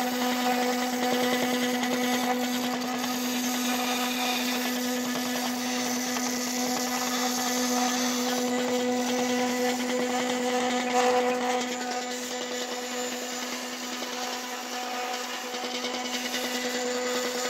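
Small electric motor of a homemade PET-bottle filament puller running steadily, a constant hum over a whirring noise.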